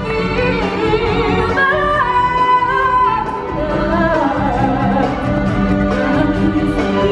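Stage-show music with a singer holding long wavering notes over a steady band accompaniment.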